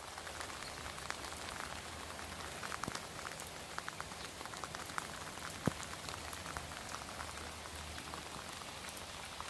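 Steady rain falling, with many sharp taps of individual drops landing close by.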